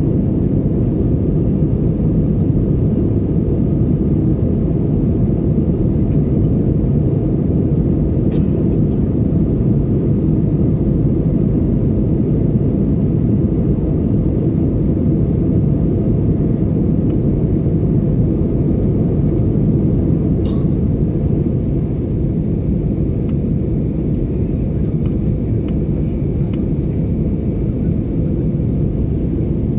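Airliner cabin noise during the climb after takeoff: jet engines and rushing airflow heard from a window seat as a steady, deep rumble.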